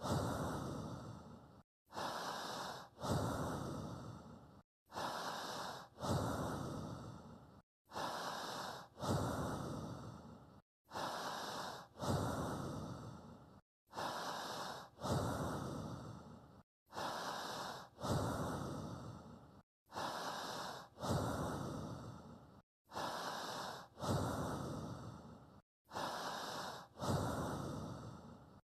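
Slow, even breathing used as a pacing track, repeating about every three seconds, roughly ten breaths in all. Each breath comes in two parts, the second louder and fading away, and each cycle ends in a brief dead silence.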